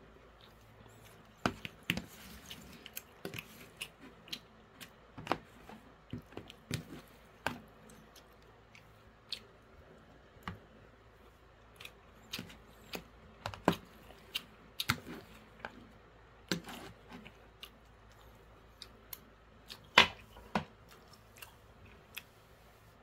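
A metal spoon scraping and clicking against a plastic takeout bowl as the last grains of rice are gathered up, with chewing in between. Short, sharp clicks come at irregular intervals, the loudest near the end.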